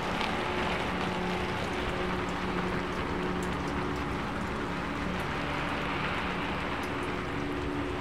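Steady rain falling: an even hiss with a few sharper drop ticks scattered through it.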